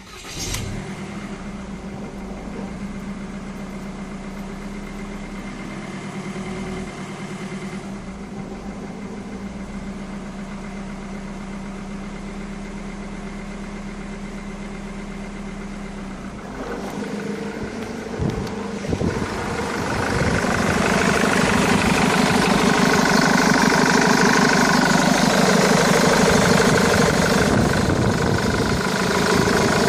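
Ford Mondeo Mk3 engine starting and settling into a steady idle. About two-thirds of the way through the revs are raised and held higher, on a car that stalls when the throttle is pressed.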